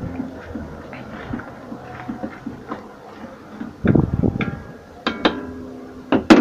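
Wooden spatula stirring and scraping wet chili paste in an aluminium wok, then knocking against the wok several times, the last knocks making the metal ring, as the spatula is tapped off and set down near the end.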